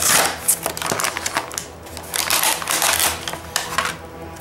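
Cardboard box and clear plastic blister tray of an action figure being opened and slid out by hand: irregular crackling, rustling and clicking, loudest at the start.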